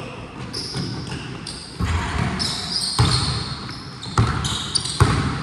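Basketball bouncing on a hard court floor, four thuds about a second apart from near the middle on, with short high squeaks of sneakers throughout.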